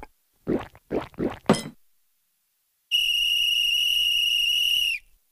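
Three short throaty sounds in quick succession, then a finger rubbed around the rim of a wine glass makes it sing one steady, high, pure ringing tone for about two seconds before it cuts off.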